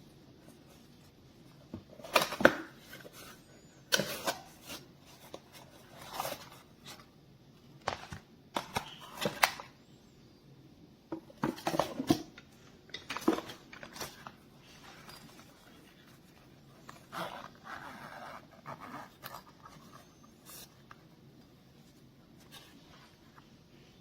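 Irregular clicks, taps and scraping of small objects being handled, in bursts with pauses between, busiest in the first half.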